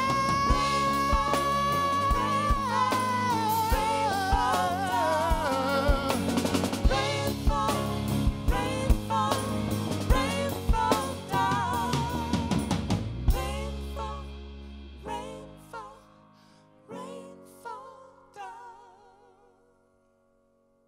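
Live rock band (drum kit, electric guitar, bass, piano) playing out the end of a song, with a long sung note held over the band at the start. About 13 seconds in, the band hits a final chord that rings out, then a few soft scattered notes fade to silence.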